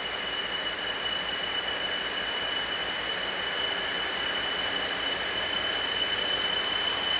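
Freight train hauled by a TEM2 diesel shunter rolling slowly, its wheels squealing on one steady high tone over a constant rolling noise that grows slightly louder near the end.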